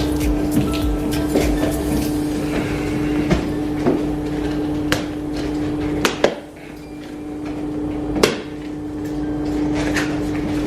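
A cardboard box being opened and the plastic visor parts inside handled: scattered sharp knocks and clatters, with a steady hum underneath.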